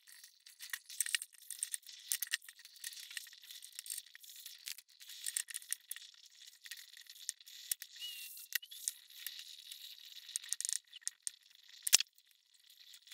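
Faint, irregular small clicks and rattles of a gooseneck lamp and its mount being handled and fitted onto a stereo microscope. One sharper click comes about twelve seconds in.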